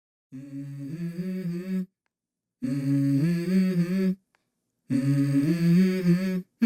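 Song intro of a hummed vocal melody in three short phrases, each a held note stepping to another, with brief silences between them.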